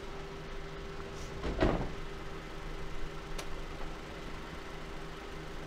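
A van's front door slams shut about one and a half seconds in, over the steady hum of the van's engine idling. A light click follows a couple of seconds later.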